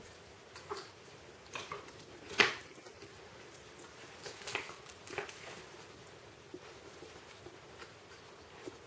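Husky puppy and ferret play-fighting on a mattress: scattered brief scuffles and taps, the loudest a sharp knock about two and a half seconds in.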